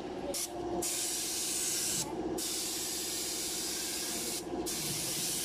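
Compressed-air spray gun hissing as it sprays enamel paint, in several long bursts separated by short pauses. A steady hum runs underneath throughout.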